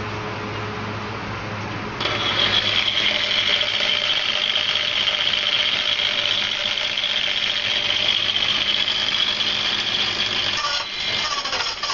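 Angle grinder fitted with a TCT (tungsten-carbide-tipped) wood saw blade running at speed with a steady high whine. The sound jumps sharply louder about two seconds in, after a steadier low hum.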